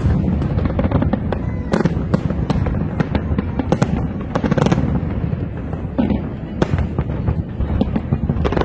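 Aerial fireworks display: a continuous barrage of shell bursts, many sharp bangs and crackles over a steady booming rumble.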